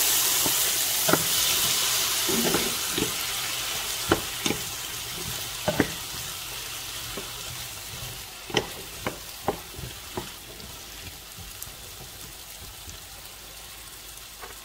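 Diced potatoes sizzling in hot oil in a nonstick pan, the sizzle loudest at first and dying down steadily. A utensil stirring them knocks and scrapes against the pan a dozen or so times in the first ten seconds.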